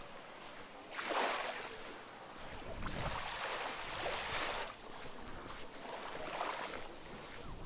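Small sea waves washing in and drawing back, the water swelling in a surge every couple of seconds.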